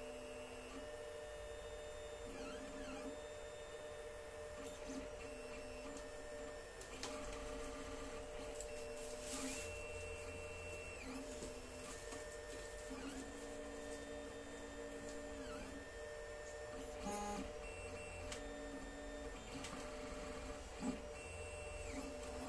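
Alfawise U10 3D printer printing: its stepper motors give short whining tones that glide up, hold and drop as the print head and bed start and stop each move, over a steady hum. A single sharp tick sounds near the end.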